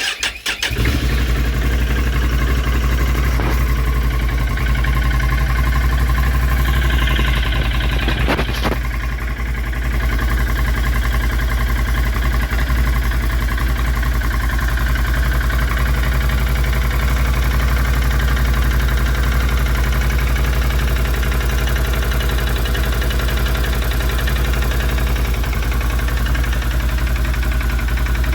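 Can-Am Renegade 650's Rotax V-twin starting up and then idling steadily from cold, with piston slap knocking in the cylinders. The slap comes from the wide piston-to-cylinder-wall clearance of a cold engine, and it stops once the engine warms up.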